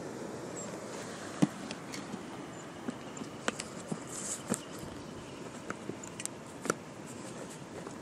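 Irregular clicks and knocks of a handheld camera being handled and carried, over a steady background hiss; the sharpest knock comes about a second and a half in.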